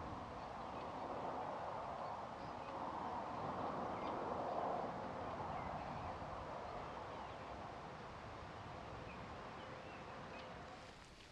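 Wind rustling through bush and trees in gusts, loudest about four to five seconds in, with a few faint bird chirps.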